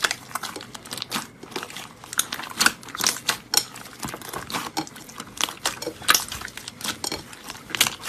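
Slime being squeezed and worked by hand, giving a dense run of irregular crackling pops and clicks.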